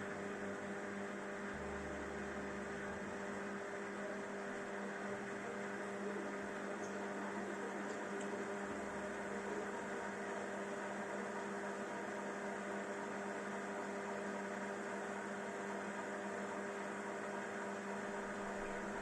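Siemens iQ500 washing machine running its cleaning programme: a steady electric motor hum, with a brief low rumble about two seconds in and another about nine seconds in.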